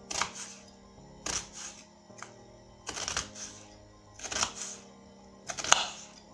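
A kitchen knife slicing an onion into thin slices on a wooden cutting board: about six cuts, each ending in a sharp knock of the blade on the board, roughly a second apart. Steady background music plays underneath.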